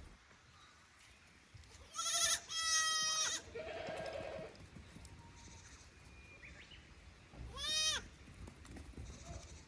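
Young goat kids bleating: a run of quavering, high-pitched calls two to four and a half seconds in, one of them lower, and another single bleat near the end.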